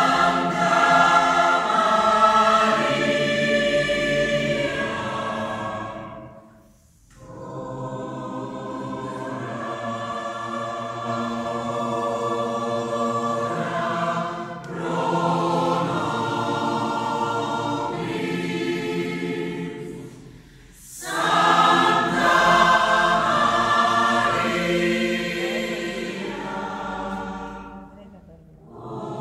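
Mixed choir of women's and men's voices singing in long sustained phrases, with brief pauses between phrases; the first and last phrases are louder than the ones in the middle.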